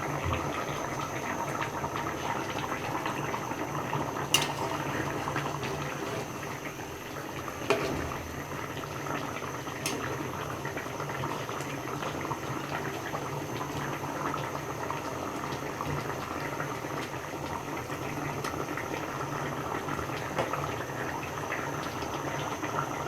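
Curry simmering in a pan, a steady bubbling hiss, with a couple of sharp clicks about 4 and 8 seconds in.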